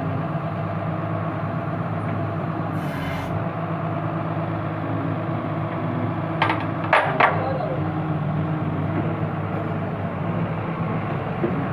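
JCB excavator's diesel engine idling steadily, with a short hiss about three seconds in and three sharp knocks in quick succession a little past halfway.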